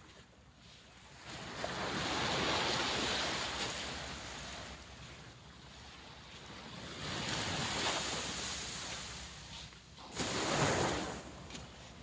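Small waves breaking and washing up a sand beach in three slow surges, the last, near the end, the sharpest and loudest, with some wind on the microphone.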